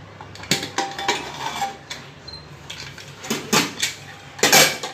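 Metal clinks and scrapes as the lid of an inner-lid pressure cooker is worked loose and lifted out, with a few sharp clicks about half a second to a second in and a louder metal clatter near the end.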